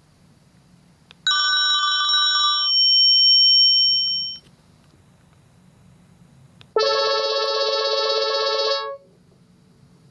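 Panasonic KX-TGD62xE cordless phone playing its electronic ringtones: a ring of a few seconds, then after a short gap a second, lower-pitched ring of about two seconds with a fast pulsing trill.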